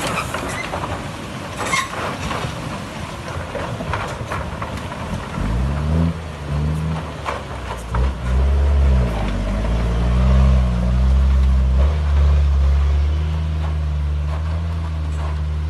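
Heavy diesel engine under load as a truck is hauled up out of a river ford on a tow chain, revving up and down and then holding a steady drone. Water sloshing with scattered knocks fills the first few seconds, before the engine comes up.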